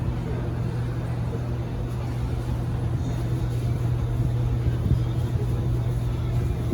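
Up escalator running: a steady low mechanical hum and drone from its drive and moving steps, dropping away near the end.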